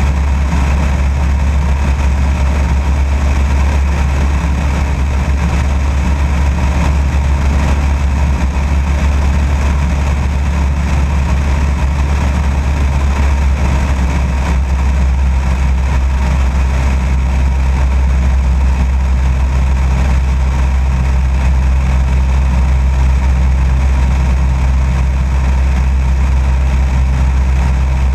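Light aircraft in level flight: a steady, loud drone of its engine and propeller, with wind rushing over a camera mounted outside under the fuselage.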